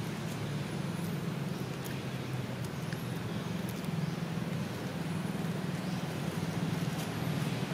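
Steady outdoor background rumble, like distant traffic or an engine, with faint, very high chirps recurring every second or two.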